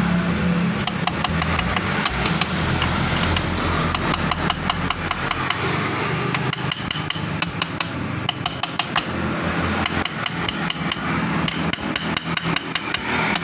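Hammer tapping on metal: many quick, irregular light strikes over steady workshop noise.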